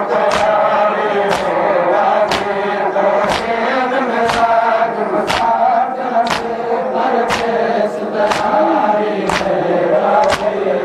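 Crowd of male mourners chanting a noha in chorus, with sharp, even claps of hands striking chests (matam) about once a second keeping time under the singing.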